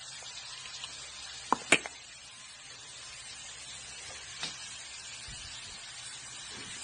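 Steady hiss of background noise, broken by two sharp clicks in quick succession about a second and a half in and a softer click a few seconds later.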